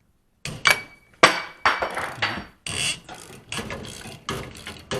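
Metal tools and hardware clanking and rattling in a run of irregular knocks, with a short metallic ring. The clatter starts about half a second in.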